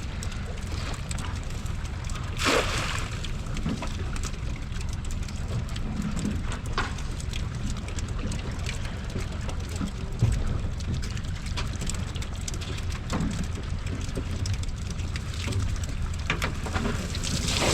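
Steady low wind rumble on the microphone, with a few scattered knocks; the sharpest come about two and a half seconds in and about ten seconds in.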